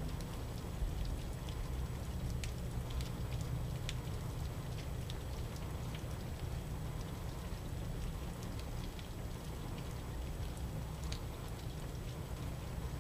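Steady rain falling during a thunderstorm, with irregular sharp ticks of single drops striking close by and a steady low rumble underneath.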